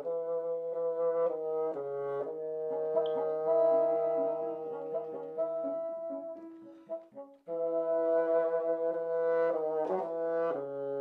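Two bassoons playing a duet in sustained notes, one holding low notes beneath the other's higher line and both moving to new notes every second or so. They break off together briefly about seven seconds in, then resume.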